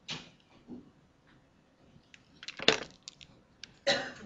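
A few scattered sharp clicks and taps: one at the start, a small cluster about two and a half seconds in that holds the loudest click, and another near the end.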